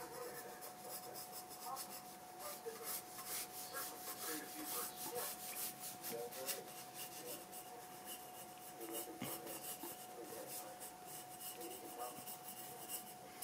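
Graphite pencil scratching across sketchbook paper in short, irregular strokes, with a faint steady hum behind it.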